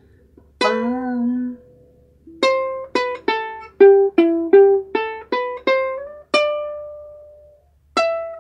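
Ukulele picked one note at a time: a slow melodic phrase of about a dozen single notes, the last one left to ring out for over a second.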